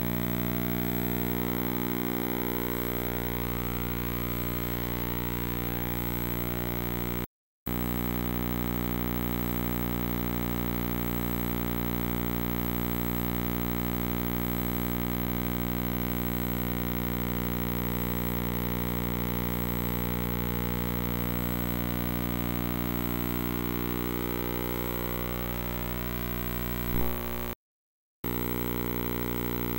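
Steady electrical hum with many overtones, as heard under a transfer of silent film. It cuts out completely twice, for a moment about seven seconds in and again near the end, with a short click just before the second gap.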